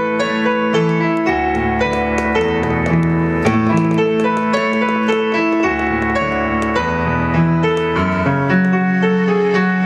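Piano keyboard playing a slow piece in sustained chords over a bass line that changes every second or so.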